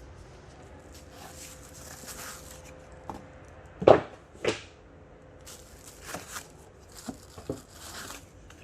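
Cardboard shipping box being opened and its packaging handled: rustling and scraping of cardboard, with two sharp knocks about four seconds in.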